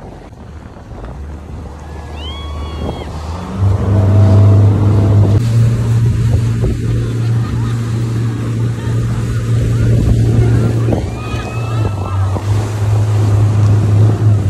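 Tow boat's outboard motor throttling up about three and a half seconds in, then running hard at a steady pitch, over the rush of the wake and wind on the microphone. A few brief high yells come through twice.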